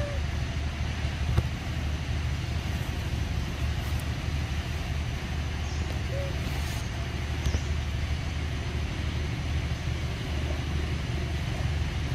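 Steady low outdoor rumble with an even hiss, and twice a faint short chirp.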